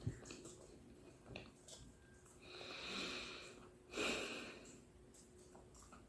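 Close-miked breath and mouth sounds of someone eating fruit: two hissing, breathy sounds near the middle, the first swelling slowly and the second starting sharply and fading, among faint wet clicks.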